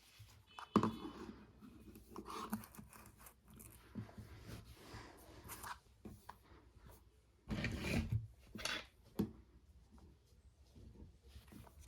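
Close-up handling noise: irregular clicks, scrapes and rustling of small objects worked by hand, with a louder stretch of scraping and rubbing about seven and a half seconds in.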